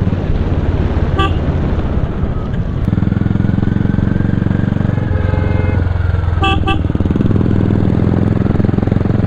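Motorcycle engine running steadily while riding. A short horn toot sounds about a second in, and a quick double toot comes about six and a half seconds in.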